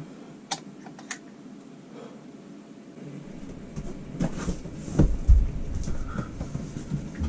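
Handling noises: two sharp clicks, then from about three seconds in a run of rustling, knocks and heavy low bumps, loudest about two-thirds of the way through.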